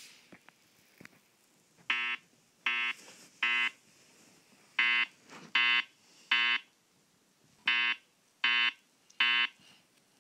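Wheelock E70 fire alarm speaker strobe sounding its evacuation tone in the temporal-three pattern: three groups of three short, steady beeps, with a pause between groups. It is played back from a video on a screen, heard through the device's small speaker.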